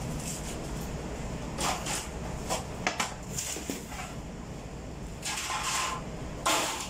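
Bakery workroom noise: a steady low machine hum with scattered knocks and clatters and a few short scraping rushes as bread rolls are handled and slid across a steel table.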